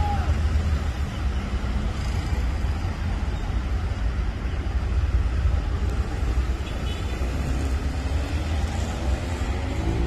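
Busy road traffic of cars and motorcycles, a continuous low rumble of engines and tyres. Near the end, one vehicle's engine rises in pitch as it accelerates.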